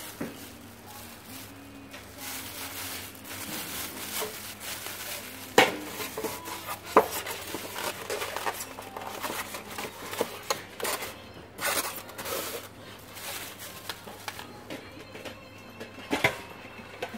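A stainless steel electric steam pot being handled: scattered knocks and clinks of the metal pot and base, with plastic wrapping crinkling. Two sharper knocks come about five and a half and seven seconds in, over a low steady hum.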